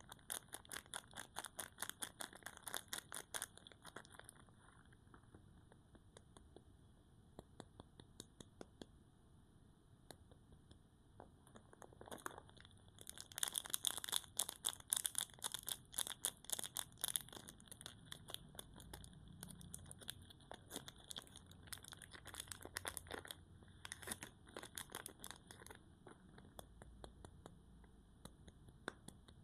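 Dry soap being cut with a knife, crunching and crackling in bursts of rapid clicks: a spell over the first few seconds, a louder, longer one around the middle, and sparser bursts near the end.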